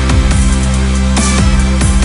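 Electronic dance music with heavy bass and a steady beat, in a dubstep style with falling bass sweeps.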